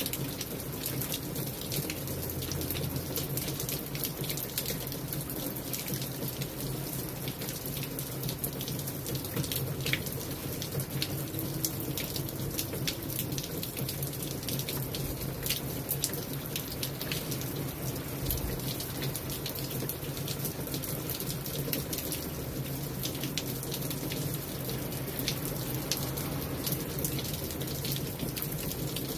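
Steady rainfall, with many individual drops landing close by as sharp ticks over an even hiss.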